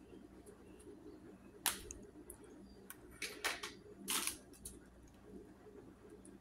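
Small plastic toy pieces clicking and knocking as they are handled and fitted together: a few sharp clacks, the loudest about a second and a half in, then a quick cluster around three and a half to four seconds, over a steady low hum.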